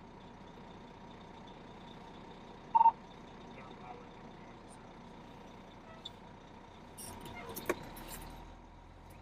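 Fire engine running, heard from inside the cab as a steady low noise. A single short beep comes about three seconds in, and some clicks and rustling near the end.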